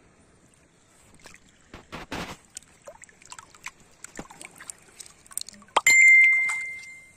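Hands splashing and scooping through shallow water and sand, with small clicks of clam shells knocking together. Near the end a sharp knock sets off a clear bell-like ring that fades over about a second, the loudest sound here.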